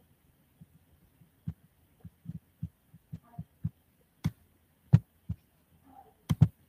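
Irregular soft thumps and taps, a dozen or so, picked up through a video-call microphone, with a few sharper clicks about four and five seconds in and a quick pair near the end.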